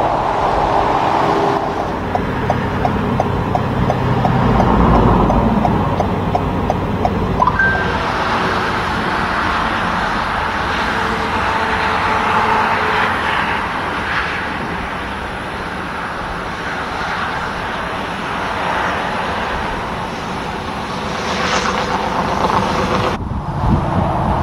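Road traffic passing: engine and tyre noise from trucks and cars going by. Early on there is a rapid run of light ticks, about three a second, and the sound changes abruptly about a second before the end.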